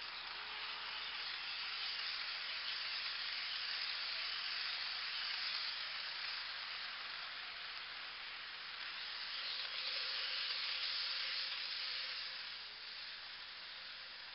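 HO-scale model train cars rolling past close by on sectional track, making a steady rushing hiss of wheels on the rails. It swells twice, then fades near the end as the cars move away.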